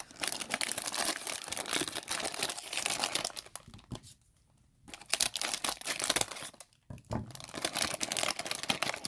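A blind-bag toy package being torn open and crumpled by hand, making a crinkling crackle. The crackle stops for a moment about four seconds in and again briefly near seven seconds.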